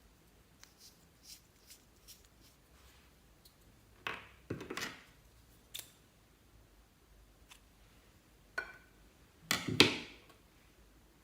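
Slime being worked by hand: scattered soft sticky clicks, with two louder crackly squishes about four and nine seconds in.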